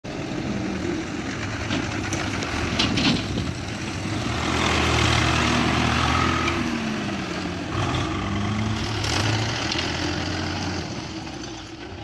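Swaraj farm tractor's diesel engine running as it drives past towing a trailer, growing louder as it comes close around the middle and fading as it moves on.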